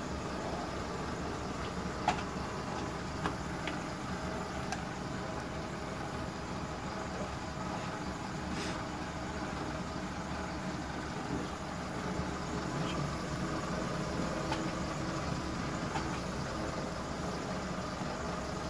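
Steady hum of an electric rig running: the generator unit's driving motor, with an electric box fan blowing on top of it. A few light clicks come in the first five seconds.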